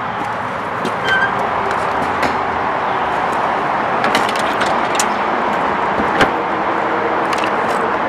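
Steady rushing noise with scattered light clicks and one sharper knock about six seconds in.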